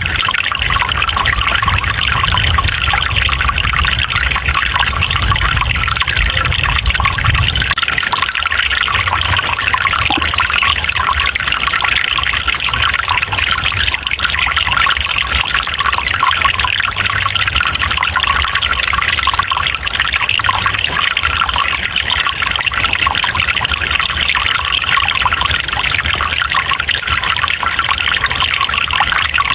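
Water trickling and splashing steadily, with a continuous even rush. A low rumble sits under it for the first several seconds, then drops away.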